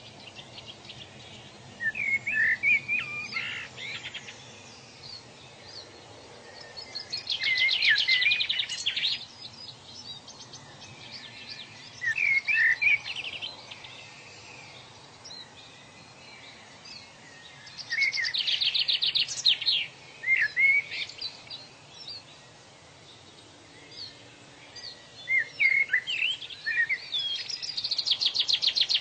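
A songbird singing: a repeated phrase of quick warbled notes ending in a fast trill, about every five or six seconds, over a faint steady background hiss.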